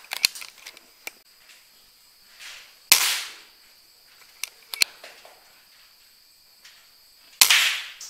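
PCP air rifle fired twice, about four and a half seconds apart, each shot a sharp crack with a short fading tail. A few shorter sharp clicks come between the shots.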